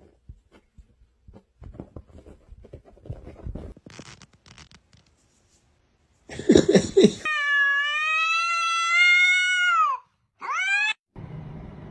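A domestic cat's long drawn-out yowl of nearly three seconds, dropping in pitch as it ends, followed by a short rising meow. Before it comes a brief harsh noisy burst, and earlier soft scuffling and light taps.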